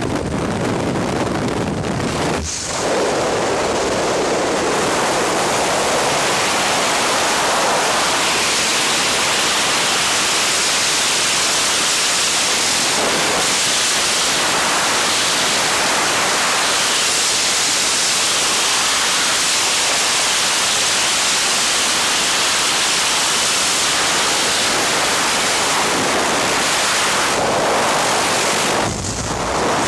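Aircraft engine and propeller noise at the open jump door for the first couple of seconds. After the exit comes a loud, steady rush of freefall wind buffeting a helmet-mounted camera's microphone, with a brief dip near the end.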